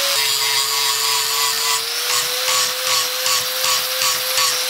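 Angle grinder beveling the edge of quarter-inch steel flat stock to about 45 degrees as weld prep: a steady motor whine that drops slightly as the disc bites into the steel, over the grinding hiss. From about two seconds in, the grinding pulses in even passes, about three a second.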